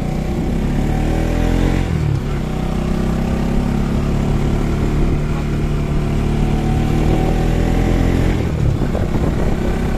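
Motorcycle engine under way, rising in pitch for about two seconds as it accelerates, then dropping sharply at a gear change and running steadily, with another brief dip in pitch near the end.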